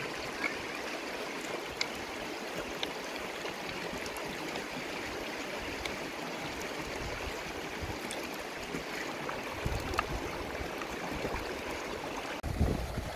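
River water running over stones, a steady rush with a few faint clicks. A low rumble of wind on the microphone comes in near the end.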